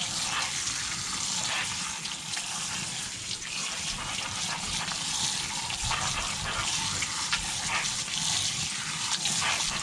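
Kitchen faucet running steadily into a plastic colander in a stainless steel sink while cooked vermicelli is rinsed under the cold water by hand.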